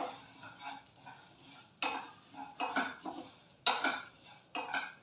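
Whole spices being stirred and scraped around a pan as they dry-roast on a low flame: a run of short, irregular scraping strokes, the loudest about two seconds and about four seconds in.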